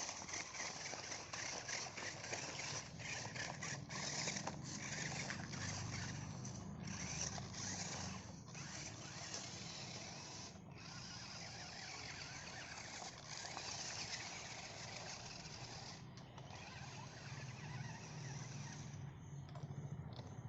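Off-road RC car driving over rough ground: a continuous crackling noise from its tyres and drivetrain, with brief dips and irregular clicks.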